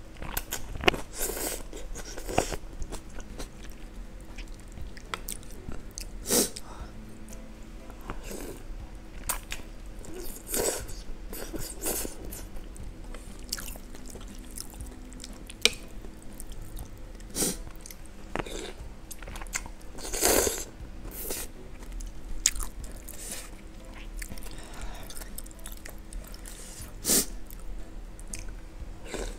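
Close-up eating of instant noodle soup: slurping noodles and chewing, with irregular short sharp mouth sounds.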